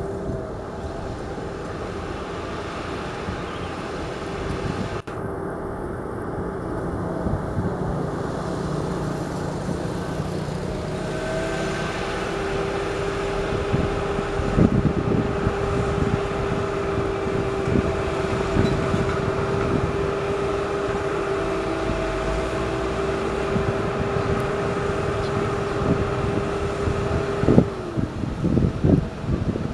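Heavy diesel machinery, a dump truck or excavator, running steadily with a constant whine that drops away near the end, followed by a few knocks.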